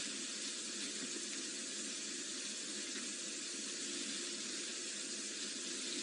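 Steady, even hiss with no distinct events.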